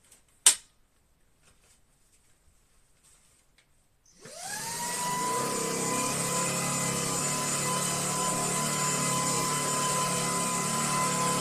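A sharp click, then about four seconds in the Shark PowerPro cordless stick vacuum's motor spins up with a rising whine and settles into a steady run with a high whine over rushing air.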